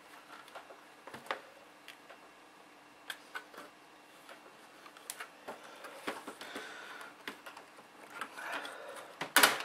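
Plastic retaining clips of an HP G50 laptop's bezel snapping loose as it is pried up with a screwdriver: scattered clicks and scraping, with a loud burst of snaps near the end.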